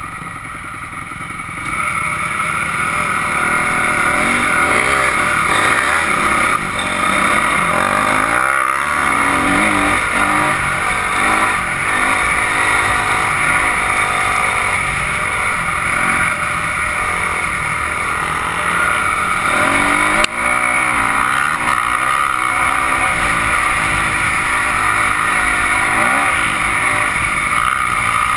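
Dirt bike engine running under way, the revs rising and falling with the throttle, with a steady rushing noise over it. A single sharp knock about twenty seconds in.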